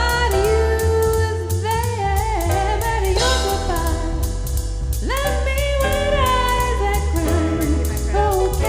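Music: a song with a sung melody over a steady beat and heavy bass.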